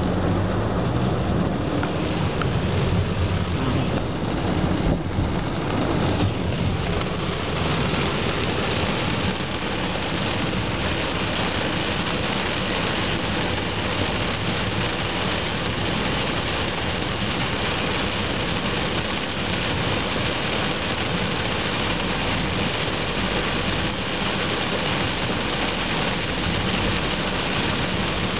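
Heavy rain pelting a car's roof and windshield, heard from inside the car as a steady dense hiss, with the low rumble of the car on the wet road underneath. The rain hiss thickens after about eight seconds.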